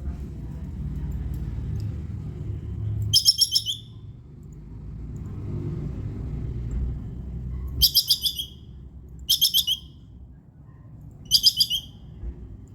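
Squirrel's 'kekes' chattering call: four short bursts of rapid, high, clicking notes, each burst about half a second long and a few seconds apart, over a steady low rumble.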